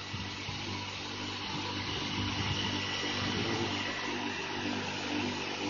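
Steady low machine hum under a constant hiss.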